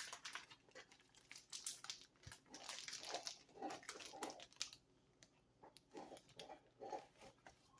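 Faint, scattered crinkling and clicking of shipping packaging being handled and worked open.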